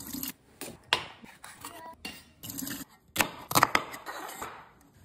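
Kitchen knife cutting through onion on a wooden cutting board: a series of sharp, irregular cutting strokes, the loudest a little over three seconds in.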